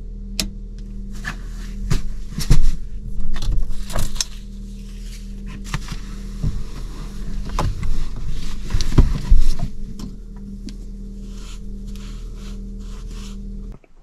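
Rustling, knocks and scrapes of gear being handled in a small camper's doorway, over a steady low hum. The hum cuts off suddenly near the end.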